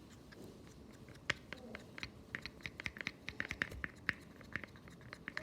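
Tapioca starch and conditioner slime being stirred: quick irregular sticky clicks and smacks, growing more frequent after about a second.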